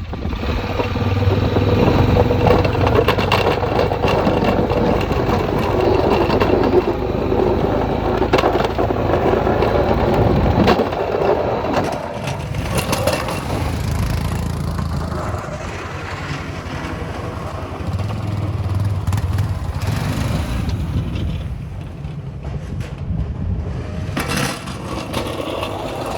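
Vehicle engine running while plowing snow, with a continuous crunching and scraping of snow being pushed; louder for about the first ten seconds, then a little lower.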